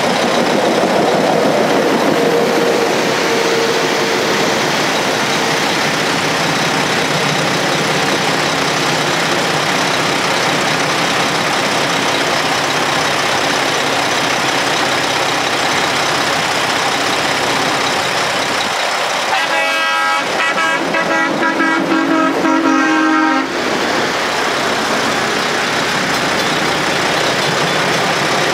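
Safetran mechanical railroad crossing bells ringing steadily. About 19 seconds in, a horn blows for about four seconds in broken toots.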